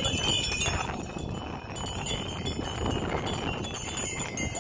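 Small bells on a horse's harness jingling steadily, over a low rumble.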